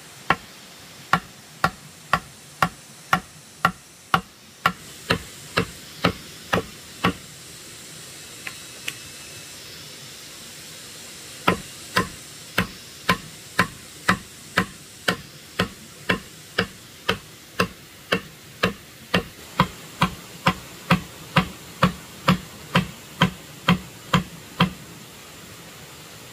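Steady rhythmic knocking, about two sharp strikes a second, stopping for about four seconds midway and then resuming.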